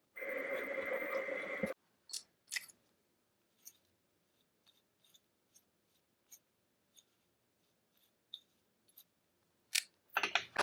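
A brief steady whirring noise that starts and stops abruptly in the first two seconds, followed by scattered light clicks and taps of small parts being handled, with a few louder knocks near the end.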